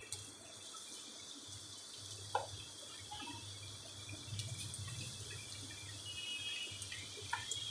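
Besan (gram-flour) batter pakoras frying in hot ghee: a faint, steady sizzle with scattered small crackles, the crackling that shows the ghee is hot enough. A single light tap comes about two and a half seconds in.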